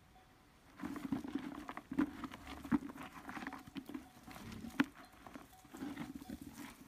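Pigs grunting in short, repeated bursts as they trot over grass, starting about a second in, with footsteps and rustling among the grunts.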